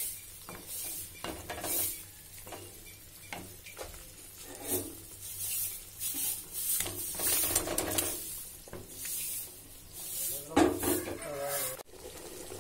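Ladle stirring and scraping through thick simmering curry in an aluminium pot, a string of irregular scrapes, as sliced boiled eggs are tipped in from a bowl and folded into the gravy.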